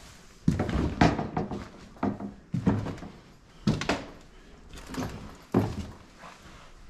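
A door being handled: about six sharp knocks and thuds at irregular spacing, each dying away quickly.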